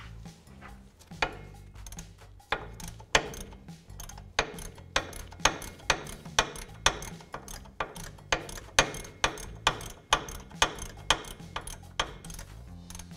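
Hand ratchet clicking steadily, about two clicks a second, as it backs out a 15 mm wheel hub mounting bolt that has already been broken free with a breaker bar.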